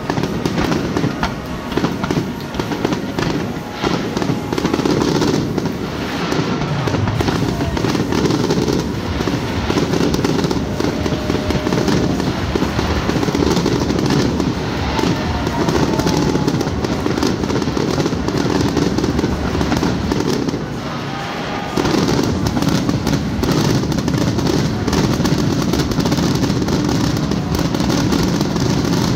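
Fireworks grand finale: a dense, unbroken barrage of aerial shell bursts and crackle, easing briefly about two-thirds of the way through before building straight back up.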